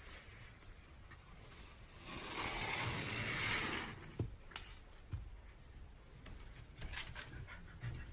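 A puppy scrambling out from under a couch onto a wooden floor: faint rubbing and scraping, a louder scuffle about two to four seconds in, then scattered light clicks.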